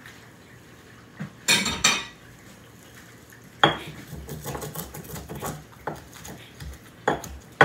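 Spices ground by hand in a stone molcajete (a lava-stone mortar and pestle), crushing garlic cloves, oregano and whole peppercorns. A rattling burst comes about one and a half seconds in. Then come several sharp knocks of stone on stone, with scraping in between.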